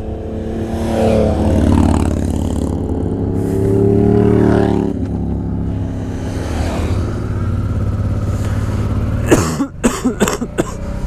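Motorcycle engine running under way, its revs climbing twice in the first five seconds and then holding steadier. About nine seconds in, a run of harsh coughs from the rider cuts across it.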